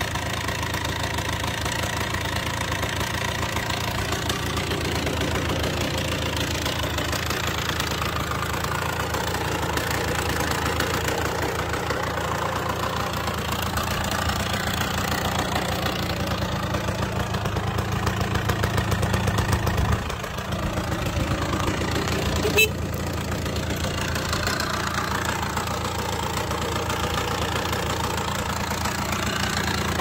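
Honda MB-8 two-stroke single, bored out with a 110cc Malossi kit, idling steadily. It grows a little louder toward twenty seconds in and dips for a moment, and a single sharp click sounds a couple of seconds later.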